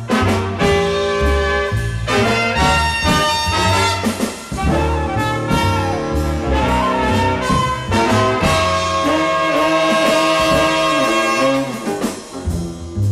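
Background music: an upbeat jazzy tune led by brass instruments over a bass line.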